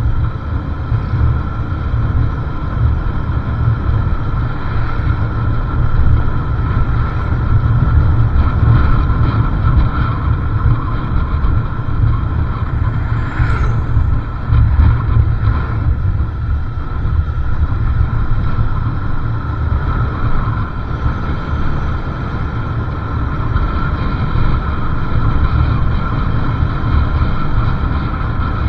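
Wind buffeting the microphone of a moving motorcycle, over the running engine and road noise, with a short high squeak about halfway through.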